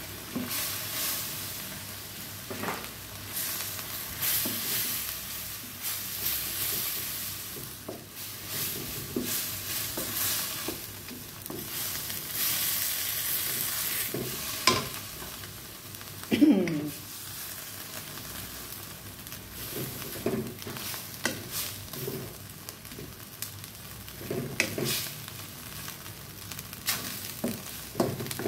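Minced pork cooking in coconut milk and red curry paste in a non-stick wok, sizzling with a steady hiss while a spatula scrapes and knocks against the pan as it is stirred. Just past halfway there is one short sound that falls in pitch, the loudest moment.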